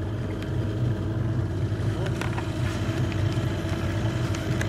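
Outboard motor of an inflatable boat running steadily with an even low hum.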